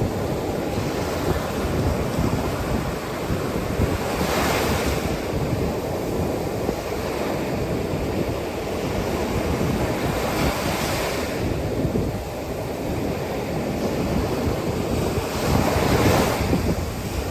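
Ocean surf on a beach with strong wind buffeting the microphone. Three waves wash in with a rising hiss, roughly six seconds apart, over a constant low wind rumble.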